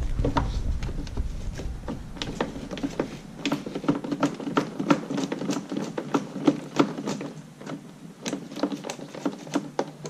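Scattered light taps and clicks of hands and tools working on a backpack leaf blower's parts, with a low handling rumble in the first couple of seconds.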